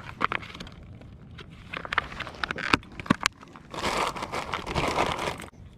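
Handling of a soft-plastic fishing lure and its plastic packaging: a series of sharp clicks and knocks, then about a second and a half of plastic crinkling near the end.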